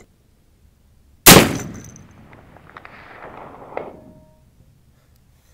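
A single shot from a .45-120 Sharps rifle about a second in, its report echoing and rolling away over the next few seconds. About two and a half seconds after the shot, a faint distant clang with a short ring comes back from the bullet striking the target stand.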